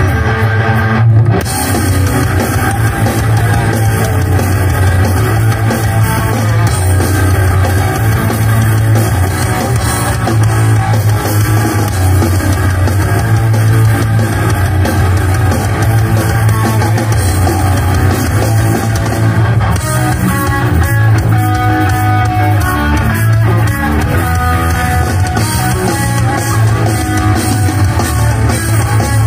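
Heavy metal band playing live: distorted electric guitar riffs over bass and a drum kit, loud and continuous.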